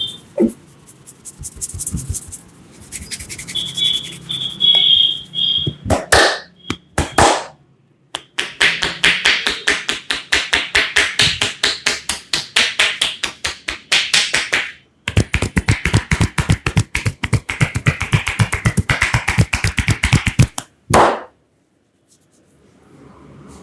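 Hands striking the body in rapid percussive massage strokes: two long runs of fast, even slaps or chops at about seven a second, with a few single louder slaps before and after.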